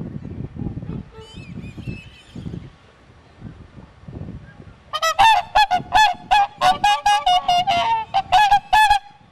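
Whooper swans trumpeting: a rapid series of about a dozen loud, bugling honks starting about halfway through, after a few fainter calls early on.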